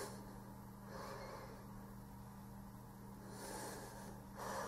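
Faint breaths through the nose, a few soft exhalations close to the microphone, over a steady low electrical hum.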